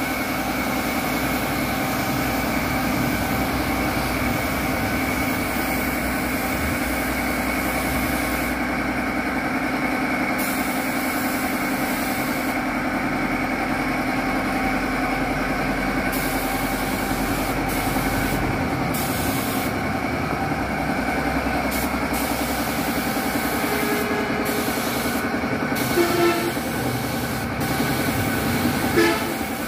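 Air compressor running steadily for spray painting, with a constant hum and a high hiss that stops and starts several times. Two short knocks near the end.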